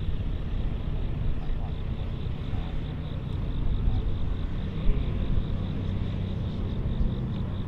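Large John Deere tractor running steadily under load as it pulls a tillage implement through corn stubble: a steady low engine rumble.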